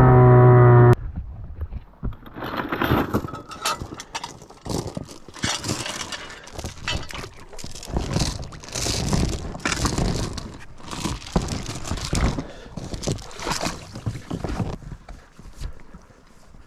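A small outboard motor's engine drone that cuts off abruptly about a second in, followed by irregular rustling, knocks and clunks of gear and rope being handled aboard an inflatable dinghy.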